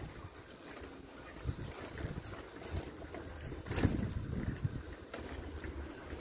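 Wind rumbling on the microphone of a handheld camera carried along on foot, with a few soft thumps; the loudest comes about four seconds in.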